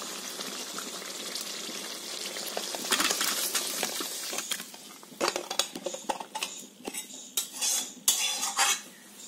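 Thick cooked pickle being tipped out of a hot kadai into a stainless steel plate: a steady hiss at first, then a spatula scraping and clinking against the metal in short strokes through the second half.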